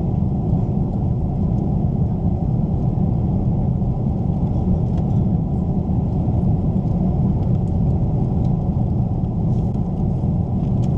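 Steady low cabin rumble of an Airbus A330-300 airliner in cruise flight, the drone of engines and airflow, with a few faint clicks of cutlery on a meal tray.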